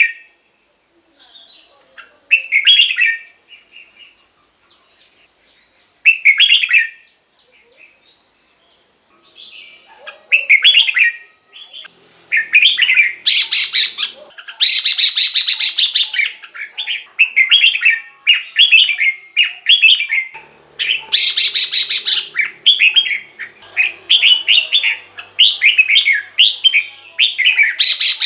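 Red-whiskered bulbul singing: short, bright whistled phrases, a few seconds apart at first, then from about ten seconds in a rapid string of phrases broken by several louder, harsher calls.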